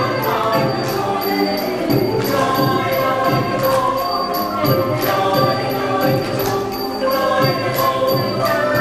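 A choir singing a lively song with musical accompaniment, over a steady light percussion beat of a few strokes a second.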